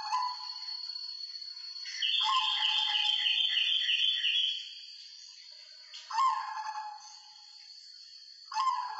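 White zebra dove (perkutut) cooing in short rolling phrases, one every two to three seconds. From about two seconds in, a louder, higher rapid chirping at about four pulses a second runs over it for two and a half seconds, and a faint steady high whine sits underneath throughout.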